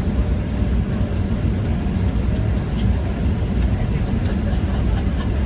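Steady low rumble inside a Boeing 737 airliner's cabin during descent: engine and airflow noise.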